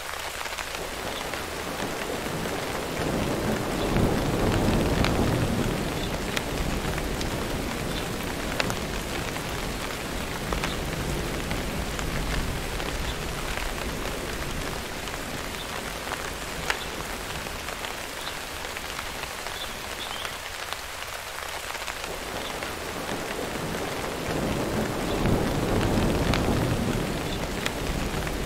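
Steady heavy rain with two rolls of thunder, one about four seconds in and one near the end.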